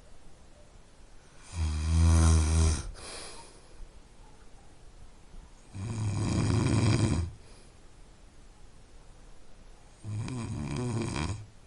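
A man snoring: three long snores, each lasting over a second, about four seconds apart. The first is the loudest and the last the quietest.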